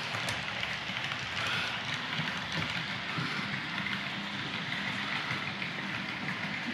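Piko H0 model SU45 diesel locomotive and double-deck coaches running on model railway track: a steady rolling rumble of the wheels, with a faint steady hum underneath.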